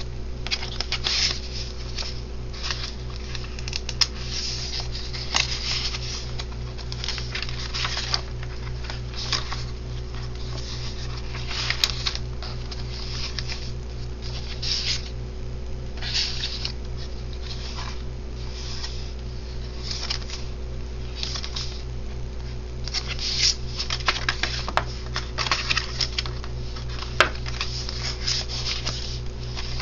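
Paper and cardstock pages of a handmade journal rustling and swishing as they are turned and handled, in irregular short bursts with a few sharp clicks. A steady low hum runs underneath.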